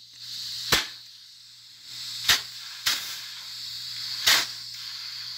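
Compressed air blown into a clutch slave cylinder under a rag: three short, sharp blasts of air with a hiss in between, about a second and a half to two seconds apart. The air pressure is being used to force the stuck piston out of the cylinder bore.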